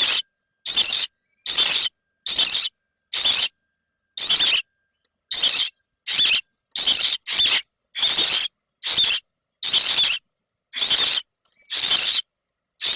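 Baby birds' begging calls: short, high, squeaky cries repeating about one and a half times a second.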